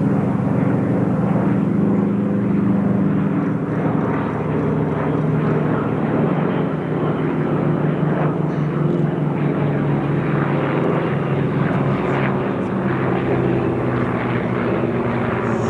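Piston engine and propeller of a vintage warbird running steadily, its pitch shifting slightly.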